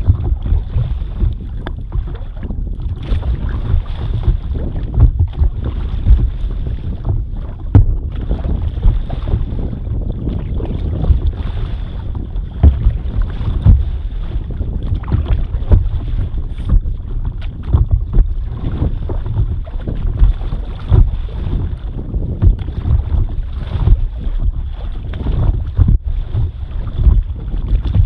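Wind buffeting the microphone of an action camera mounted on a stand-up paddleboard, a constant rumble with frequent sharp gusts, mixed with water splashing against the board.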